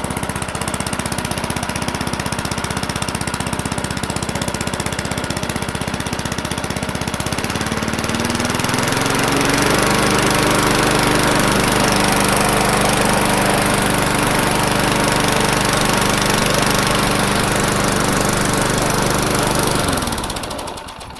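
Old Craftsman lawn mower's small engine running steadily, revving up to a higher speed about eight seconds in, then shutting off and winding down near the end. It runs properly now that the loose blade has been tightened back up.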